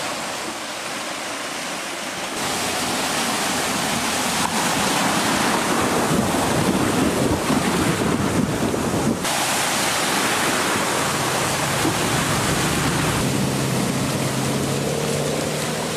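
Muddy floodwater splashing and surging as a 2014 Range Rover Sport wades through it, with wind buffeting the microphone. The rush builds over the first few seconds and cuts off suddenly about nine seconds in; a low steady hum comes in near the end.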